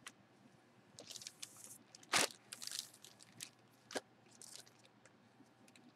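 Plastic bag around a folded jersey crinkling as it is handled, in several short bursts. A sharper knock comes about two seconds in and a click about four seconds in.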